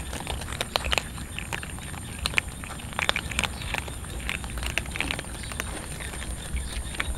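Several cats crunching dry kibble from a metal tray: a stream of irregular, crisp crunches and clicks.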